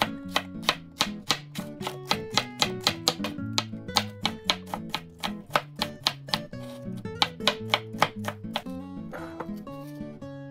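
Chef's knife chopping an onion on a wooden cutting board: quick, even strokes at about four a second that stop about three-quarters of the way through. Background music plays throughout.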